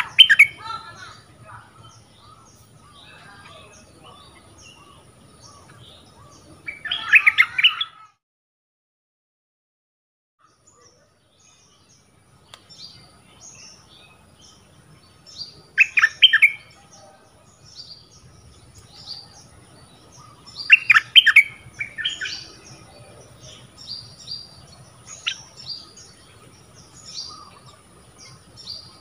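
Caged decoy bulbul singing loud short bursts of rapid notes several times, with many fainter high chirps between them. The sound cuts out completely for about four seconds roughly a third of the way in.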